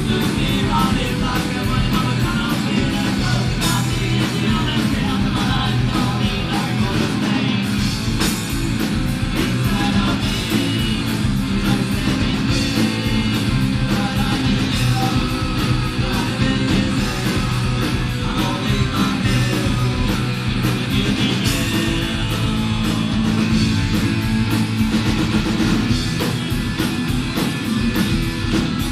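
Rock band playing live: distorted electric guitars, bass guitar and drum kit, loud and unbroken, heard from the audience in the venue.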